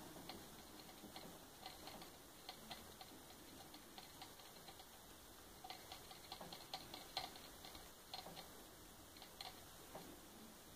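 Faint, irregular crunchy clicks of a guinea pig chewing cabbage leaves, busiest and loudest a little past the middle.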